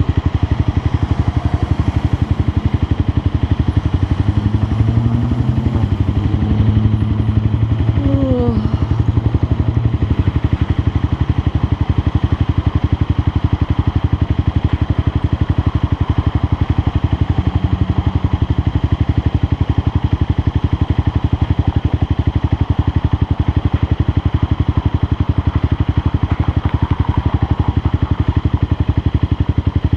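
Motorcycle engine running steadily while riding, with a short falling tone about eight seconds in.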